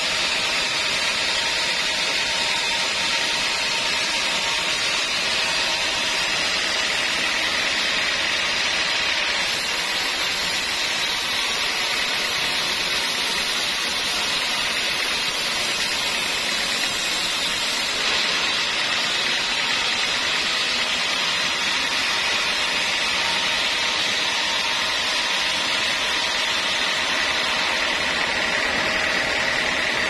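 Homemade band sawmill running steadily, its blade cutting lengthwise through a curved teak log.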